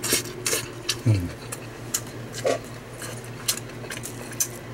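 Scattered light clicks and ticks of chopsticks against a black plastic takeaway tray as rice noodles and salad are picked up, with a short low grunt from a voice about a second in.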